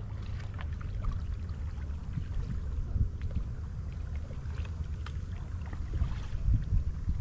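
Wind buffeting the microphone as a low steady rumble. Over it come faint, scattered splashes and drips of kayak paddles dipping into the water.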